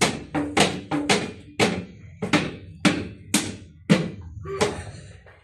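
About a dozen loud, unevenly spaced drum-like strikes, each ringing briefly before the next.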